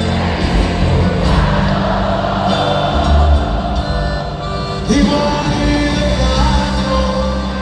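Live Mexican banda music, with tuba and brass and a man singing into a microphone over the band.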